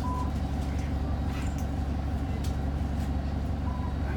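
Diesel engine of an Alexander ALX400-bodied Dennis Trident 2 double-decker bus running at a steady, unchanging speed. Two short high beeps sound, one at the start and one near the end.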